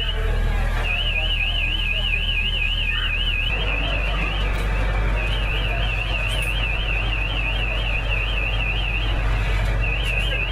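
An electronic alarm warbling at a high pitch, about four or five wobbles a second, breaking off briefly every five seconds or so. Under it runs a steady low rumble from idling fire apparatus.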